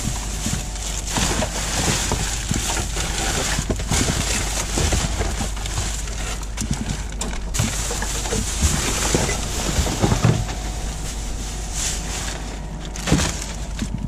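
Black plastic rubbish bag crinkling and rustling as gloved hands rummage through it in a wheelie bin, with scattered clicks and knocks of paper, packaging and containers being shifted.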